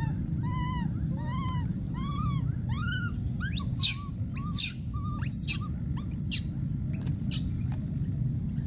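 Baby macaque crying with a string of short calls that rise and fall in pitch, about two a second. About four seconds in comes a run of about four shrill calls that sweep steeply down in pitch, over a steady low rumble.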